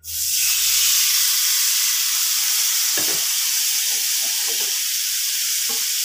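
Spice-marinated boneless chicken pieces hit a hot nonstick pan and sizzle loudly. The sizzle starts suddenly and stays steady. A spatula stirs the pieces, with a few short scrapes about three seconds in and again near the end.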